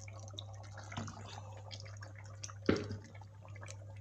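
Chicken curry in oily masala sizzling and spluttering in a wok with ground spinach paste just added: a scatter of small pops and ticks. A steady low hum runs underneath, and a single knock, the loudest sound, comes about two-thirds of the way through.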